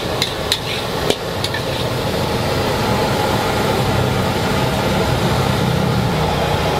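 Metal spatula clanking against a wok, four sharp knocks in the first second and a half, over a steady rumble.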